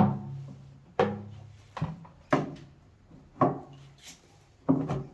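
Six sharp knocks at uneven intervals, each followed by a short low ring.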